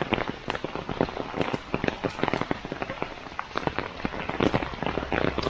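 Heavy rain falling, with a dense, irregular spatter of drops hitting close to the microphone.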